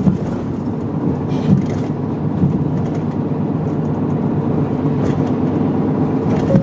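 Medium-size route bus driving along, its engine and road noise running steadily as heard from inside the passenger cabin, with a few short knocks along the way.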